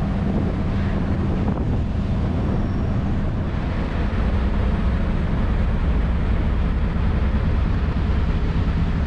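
Steady low drone of a roll-on roll-off car ferry's engines under way, with a rush of wind and water over it.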